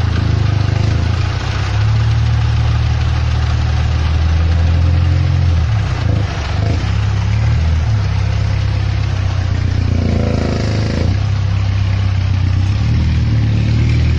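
Tractor engine running steadily under load as it tows a stuck, loaded truck through mud, a loud low drone that wavers slightly midway. A short higher-pitched sound rises over it about ten seconds in.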